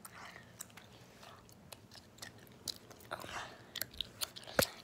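Scattered soft rustles and small clicks of objects being handled close to the microphone, with one sharper click near the end.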